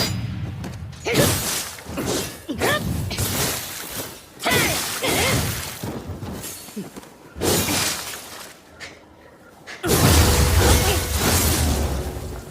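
A series of ōdachi sword sound effects: sudden blade hits and swishes, several with a metallic ring that bends in pitch, separated by short pauses. About ten seconds in comes a longer, heavier hit that runs for a couple of seconds.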